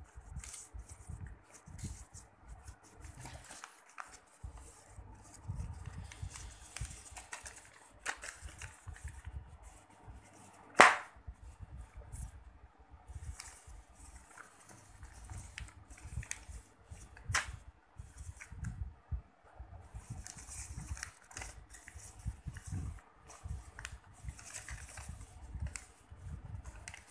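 Sheet of lined notebook paper being folded and creased by hand, with rustling and small crinkles and taps throughout. Twice a sharp crack stands out, about eleven and seventeen seconds in, the first the loudest.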